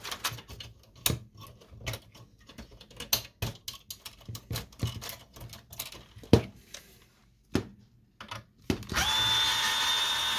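Scattered clicks and plastic rattles as cable connectors are unplugged from an inkjet printer's main board, then, about nine seconds in, an electric screwdriver runs at a steady pitch for about two seconds, backing out a screw.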